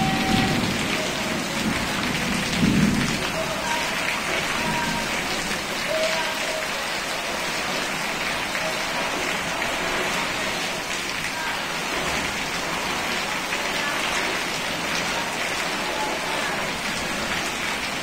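Heavy rain beating down steadily, with runoff pouring in streams off a tiled roof edge. A low rumble rises under the rain in the first three seconds.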